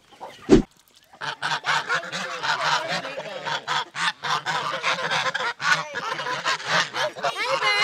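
A flock of domestic geese honking, many calls overlapping without a break, after a short thump near the start.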